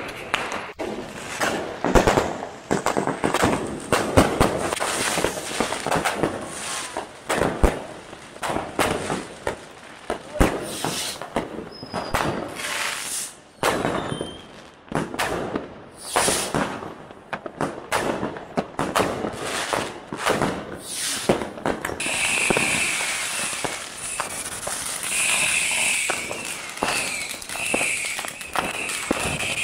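Consumer fireworks and firecrackers going off at street level: a dense, irregular string of bangs and crackles. From about three-quarters of the way through, a ground fountain firework hisses steadily alongside them.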